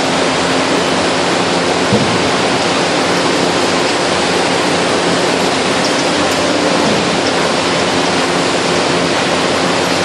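International Baler TR12-T100 two-ram hydraulic baler running while baling old corrugated cardboard: a loud, steady machine rush with a faint low hum underneath and no distinct impacts.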